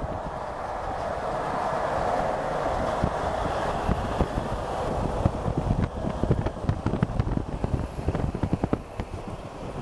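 Highway road noise from driving close alongside a garbage truck: a steady rush of tyres and engines at speed. Irregular low thumps of wind buffeting the microphone come more often in the second half.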